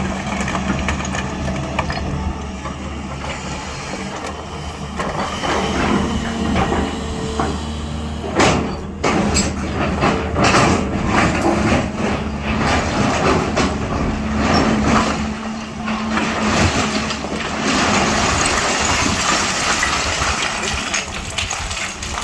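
SANY 365H long-boom excavator's diesel engine running steadily, with a few sharp knocks or clanks about eight to eleven seconds in.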